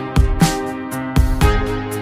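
Background music: an electronic track with plucked guitar-like notes over a steady beat of drum hits.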